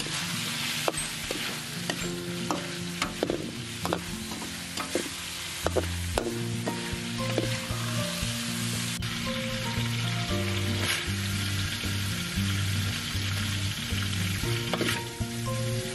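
Food sizzling as it is stir-fried in a hot pan, with irregular clicks and knocks of a spatula against the pan, most frequent in the first half. Soft background music runs underneath.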